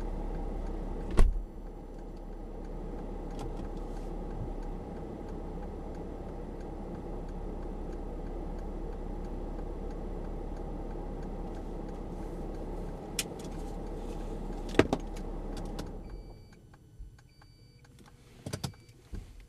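Steady low hum inside the cabin of a Mercedes-Benz GL-Class standing with its engine idling, with a sharp click about a second in and another around fifteen seconds. The hum stops about sixteen seconds in, leaving quiet with a few faint clicks and short high beeps.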